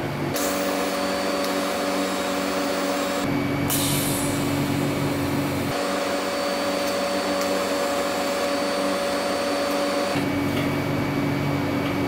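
TIG welding arc from an Everlast multi-process welder on steel tubing: a steady hissing buzz with a constant hum. The tone shifts abruptly a few times, about three, six and ten seconds in.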